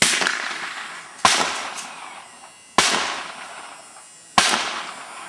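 Four shots from a Ruger 10/22 semi-automatic .22 LR rifle, spaced about a second and a half apart. Each sharp crack is followed by an echo that fades over about a second.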